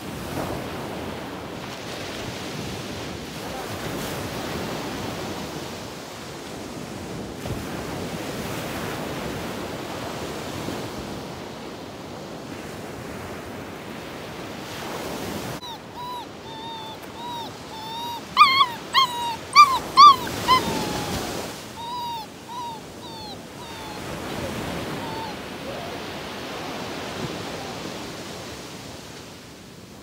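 Surf washing onto the beach throughout. About halfway through, a dog whimpers in a run of short, high yelps, loudest for a few seconds and then trailing off.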